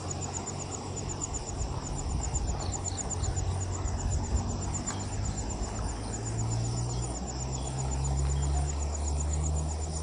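Steady rush of the flood-swollen Bhadra River flowing fast past a low bridge, with a low rumble underneath. An insect trills throughout in quick, even, high-pitched pulses.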